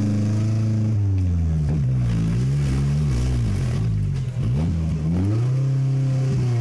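Off-road trial vehicle's engine revving up and down as the throttle is worked. The revs drop about a second in, dip lowest around four seconds in, then climb back high near the end.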